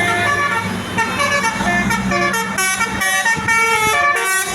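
Basuri multi-trumpet telolet bus horn playing a tune, a quick run of short stepped notes.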